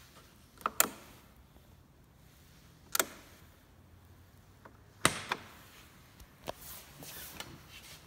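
Sharp plastic clicks from a Honda SH 150i scooter's smart-key ignition knob being pushed and turned: a pair about a second in and a single click near three seconds. A second pair about five seconds in, then a short rustle, is the seat latch releasing and the seat being lifted.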